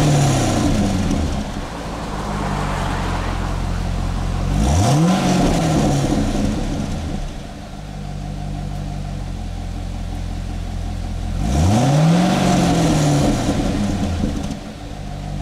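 Chevrolet Corvette C6 V8 on its stock exhaust, idling between quick revs: a rev falls back to idle at the start, then two more blips, about five and twelve seconds in, each rising sharply and settling back to idle.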